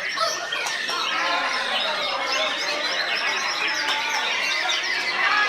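Many caged songbirds singing at once: a dense, unbroken chorus of overlapping chirps, trills and whistles.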